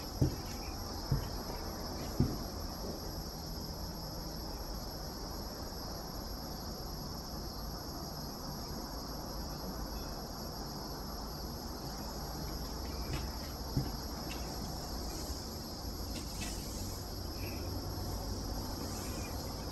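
Steady chorus of crickets, a continuous high-pitched trill. A few dull thumps come in the first couple of seconds and one more about two-thirds of the way through.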